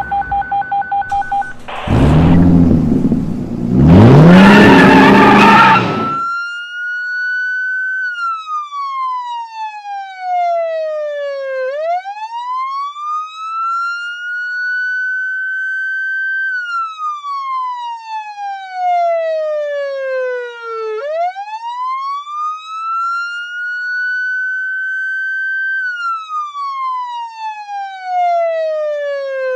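A short run of beeps, then a loud rumbling burst that rises in pitch. About six seconds in, a police car siren starts its wail, a slow rise and fall taking about nine seconds per cycle, the signal that the countdown has run out.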